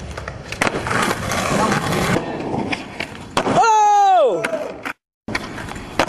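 Skateboard wheels rolling on concrete, with sharp clacks of the board hitting and landing. About three and a half seconds in, a voice gives a long cry that falls in pitch. The sound cuts out for a moment near the end.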